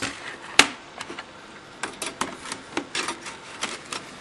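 Light clicks and taps of hard plastic laptop parts being handled, with one sharper click about half a second in and a run of small clicks from about two seconds in.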